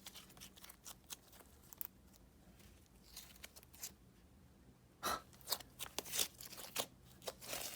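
Faint sticky clicks and small pops of clay slime being swirled and squished by hand, sparse at first and coming thicker from about five seconds in.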